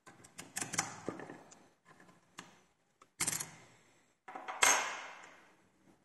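Small metal clicks and rattles from a lock cylinder and lockpicking tools being handled, in three bursts that each trail off, the last near the end the loudest.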